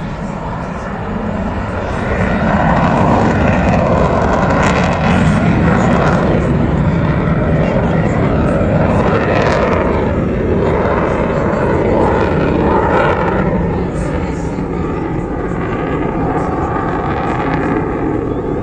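Jet engine of a fighter-type aircraft flying past overhead. The noise swells about two seconds in, stays loud, then eases slightly over the last few seconds.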